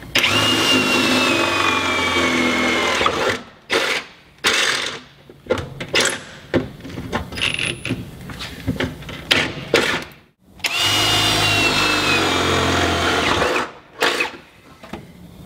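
Cordless drill boring 10 mm holes through a Land Rover Discovery 2's sill, in two runs of about three seconds each, its whine dropping in pitch during each run. Between the runs comes a string of sharp clicks and knocks.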